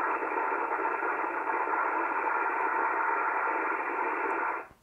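ICOM IC-751A receiver's audio on a signal generator's carrier: a steady, scrambled, rough hiss instead of a pure tone. The PLL cannot lock, because its voltage-controlled oscillators are out of adjustment, so the VFO frequency hunts rapidly up and down. It cuts off near the end.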